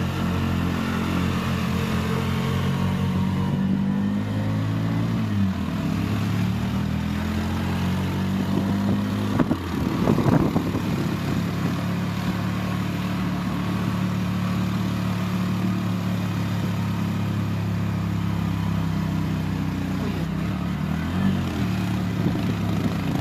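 Bus engine running under way, heard from inside the bus. Its pitch shifts about five seconds in, and there is a short louder, noisier burst about ten seconds in.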